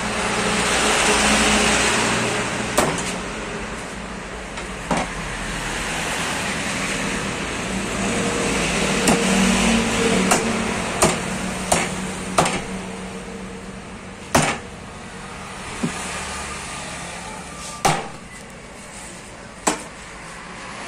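Cleaver chopping through a tuna on a wooden log block: about a dozen sharp, irregularly spaced chops, a second or two apart. Behind them, engine noise from passing traffic swells and fades twice.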